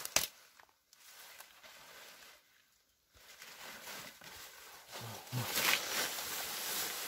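Leaves and stems of a wild grape vine and grass rustling as hands push through them, with a sharp snap or click just after the start and the rustling growing louder in the second half.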